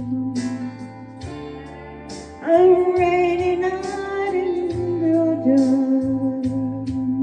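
A woman singing a slow soul ballad over a backing track of bass, guitar and hi-hat; about two and a half seconds in she comes in loud on a long held note that eases down, then holds a lower note.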